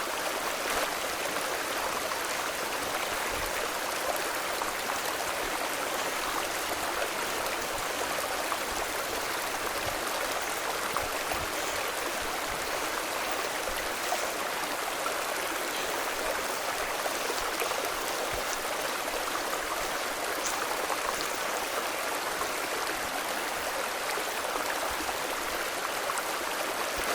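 Steady rush of water from the waterfall's stream, an even unbroken hiss of flowing and falling water.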